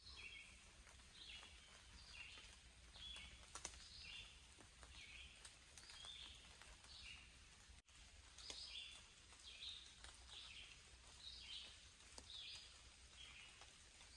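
Faint birdsong in woodland: a bird repeating short, high chirping notes, about one and a half a second, in a steady series.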